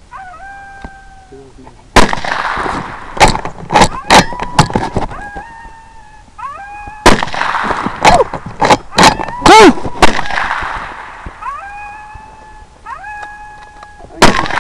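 Electronic predator caller playing a looped animal call: short wailing notes, each held and stepping up in pitch, repeat again and again. They are broken by sudden loud noisy bursts about two seconds in, around seven seconds and near the end, each with a run of sharp cracks after it.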